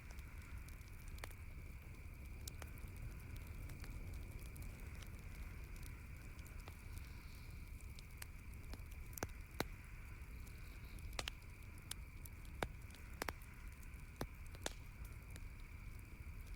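Campfire crackling, with sharp pops at irregular intervals, a few louder ones about nine and a half and eleven to thirteen seconds in. Under them run a steady low rumble and a faint steady high-pitched hiss.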